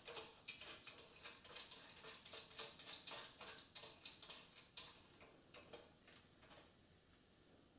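Faint, irregular light clicks of small hardware being handled: a plastic washer and nut being fitted onto a bolt at the engine-stay mount of a motorcycle frame. The clicks thin out near the end.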